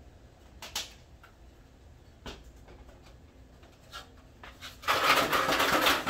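A few light knocks, then near the end an aluminium stepladder being shifted across the floor, its feet scraping noisily for about a second and a half.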